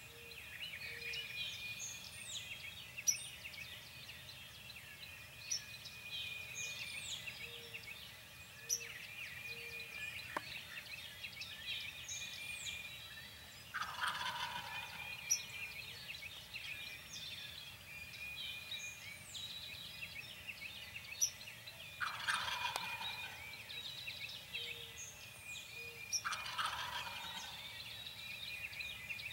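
A wild turkey gobbling three times, each gobble about a second long, over a steady chorus of songbirds chirping and whistling.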